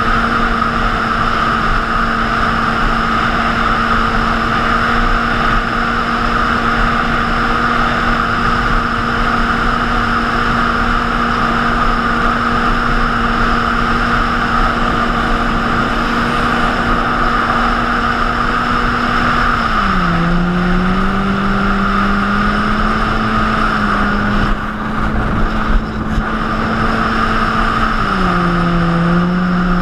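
Jet ski engine running at speed with a steady note over the rush of water and wind. The engine note drops about two-thirds of the way through and again near the end.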